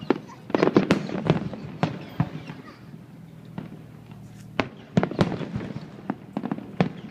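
Fireworks display: aerial shells bursting in a rapid series of bangs and crackles, in clusters about half a second in and again around five seconds in.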